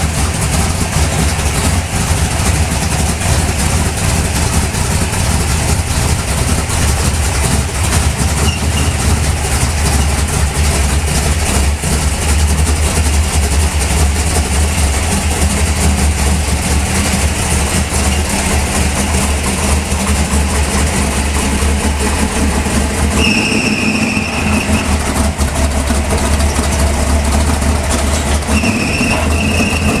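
1970 Plymouth Duster's 440 big-block V8 running steadily at low speed while the car backs out. A thin high-pitched squeal comes in briefly twice in the last several seconds.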